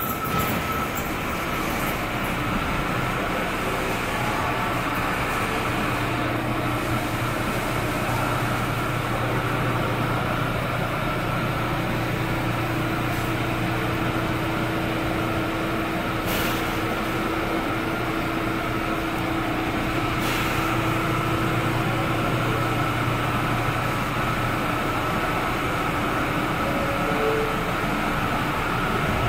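An R179 subway train stopped at the platform, its on-board equipment giving a steady hum and whir. There are two faint brief clicks in the second half.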